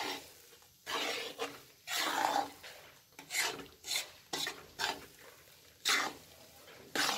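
Metal spatula scraping and stirring besan (gram flour) as it roasts in ghee in a metal kadhai, a rasping scrape with each stroke, roughly one stroke a second at an uneven pace.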